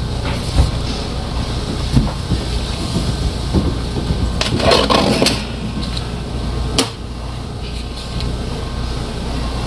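A machine running with a steady low hum, with scattered knocks and a short rattling clatter about halfway through.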